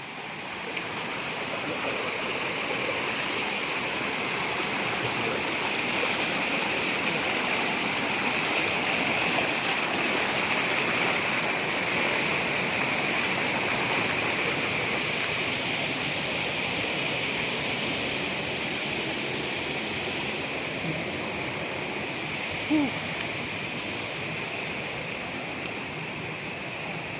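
Steady rush of flowing water, building over the first couple of seconds and easing slightly toward the end, with one brief short pitched sound about three quarters of the way through.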